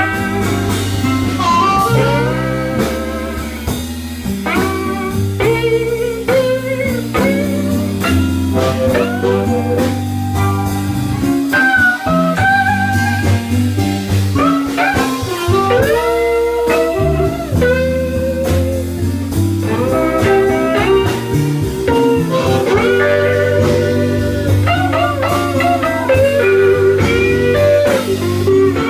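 Blues band playing an instrumental break: a lead guitar solos with bent, sliding notes over a steady bass line and drums.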